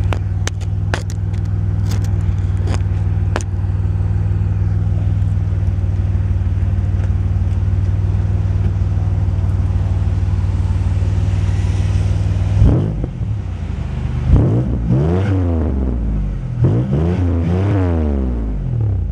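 Supercharged 3.8-litre V6 of a Pontiac Grand Prix GTP, fitted with ZZP stainless steel headers and a 2.5-inch cat-back exhaust, idling steadily, with a few sharp clicks in the first few seconds. About two thirds of the way through it is revved three times, each rev rising and falling back.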